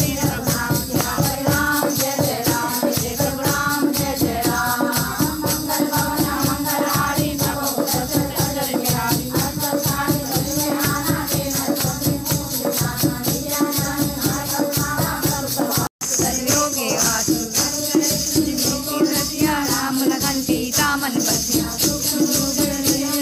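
A group of women singing a Hindu devotional recitation together in unison, with a steady beat of shaken percussion and hand clapping. The sound cuts out for an instant about two-thirds of the way through.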